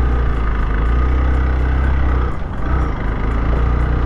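Motorcycle engine running on a dirt track, with a steady rushing noise over it. The engine note drops briefly a little over two seconds in, then picks up again.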